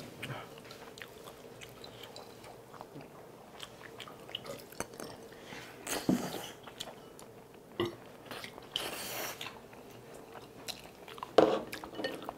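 Close-up mouth sounds of eating wide Chinese glass noodles: chewing and slurping with small wet clicks, and a louder slurp about six seconds in.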